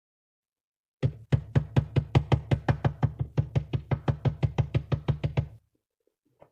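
Short intro music: a fast, evenly spaced run of knocking beats, about five a second, over a low bass. It starts about a second in and stops suddenly near the end.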